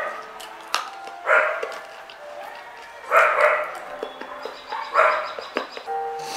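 A dog barking, three single barks about two seconds apart.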